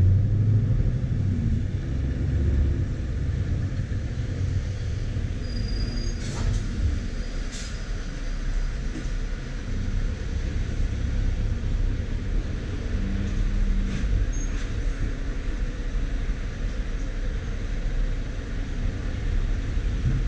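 Scania S520's V8 diesel engine running steadily, a low rumble heard from inside the truck cab, with a few short clicks partway through.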